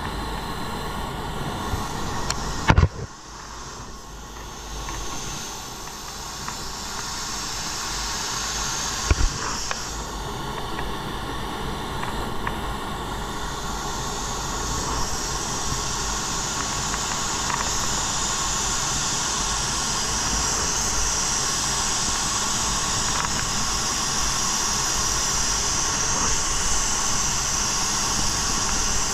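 Automotive paint spray gun hissing with compressed air as it sprays, steady for long stretches. There are two sharp knocks, about three and nine seconds in.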